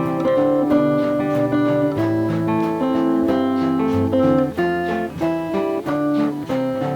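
Background music: an acoustic guitar picking a melody with a bass line, plucked notes several a second.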